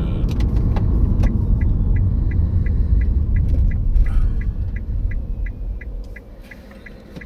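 Car cabin with a steady low engine and road rumble. From about a second and a half in there is a regular ticking, about three ticks a second, which is the turn-signal indicator flashing as the car pulls in to stop. The rumble fades near the end as the car slows.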